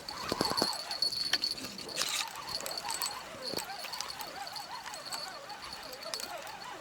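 Crickets trilling steadily, high-pitched, with short wavering calls from other animals underneath and a few clicks near the start.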